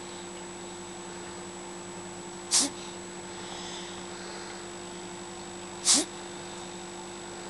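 Two short, sharp gasps for air from a sleeper, about three seconds apart, over a steady hum.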